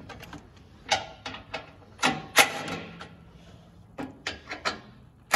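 Scattered knocks and clicks of a plastic vehicle under-panel and a cordless drill/driver being handled while screws are undone, the loudest about two and a half seconds in. A power drill starts suddenly right at the end.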